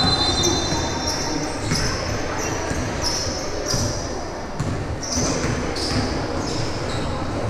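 Basketball game on a hard gym court: the ball thudding on the floor and sneakers squeaking in repeated short, high chirps as players move, echoing in the hall.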